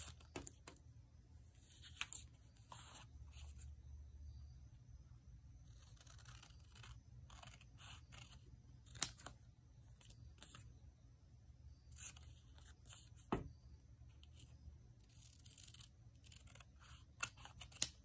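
Paper journaling stickers being handled and cut with scissors: scattered paper rustles and short snips, with a few sharp clicks and one tap against the table about halfway through.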